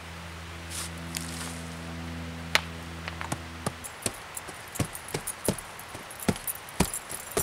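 Rubber boots stepping on bare forest soil strewn with twigs and grit, giving sharp crackling clicks about two to three times a second in the second half. In the first half only a few clicks sound over a steady low hum, which stops suddenly about four seconds in.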